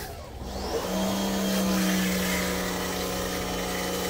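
Pressure washer motor coming on about a second in and running with a steady hum while the car is sprayed down.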